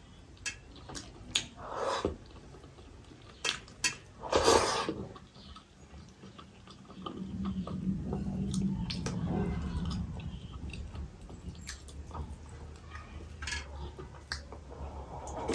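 Eating by hand from a stainless-steel bowl: fingers mix rice and chicken curry against the metal with scattered light clicks, along with chewing.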